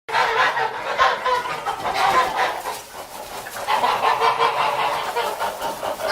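A flock of geese calling: many short, overlapping calls in a dense chatter that starts abruptly.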